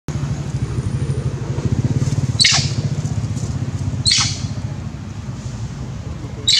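An engine running steadily with an even, fast low pulse, with three short, high squeaks that fall in pitch, spaced under two seconds apart.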